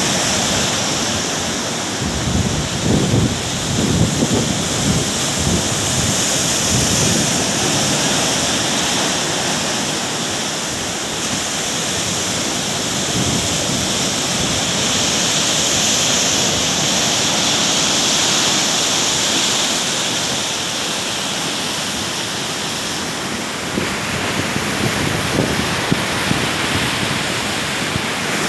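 Hurricane-driven storm surf crashing steadily against a seawall and rocky shore, with wind rumbling on the microphone, heaviest a few seconds in.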